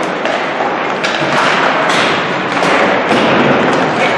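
Ice hockey rink noise: a steady din with repeated thuds and knocks coming every fraction of a second.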